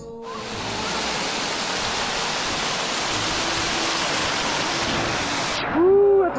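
Small mountain waterfall, water pouring and splashing over rocks close by: a steady, loud rush of falling water. Near the end the rush stops abruptly and a loud pitched sound that rises and falls in pitch comes in.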